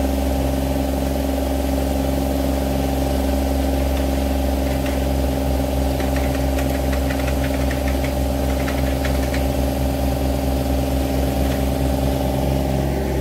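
Engine of a compact digging machine running steadily, with a few light knocks midway as a mini excavator drops dirt and clods into a Ditch Witch compact loader's bucket.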